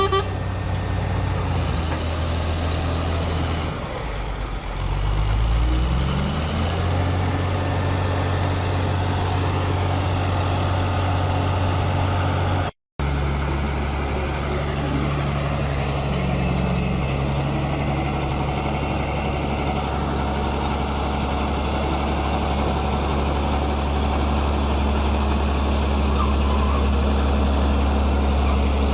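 Heavy logging truck's engine running steadily, with a rise in revs about five seconds in. The sound breaks off for a moment near the middle, then the engine runs on at a steady pitch.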